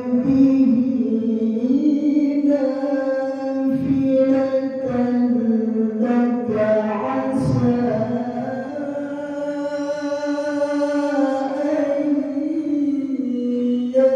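A male qari's solo voice reciting the Quran in melodic tilawah style, high-pitched and melodious, drawing out long, ornamented notes with the pitch turning up and down.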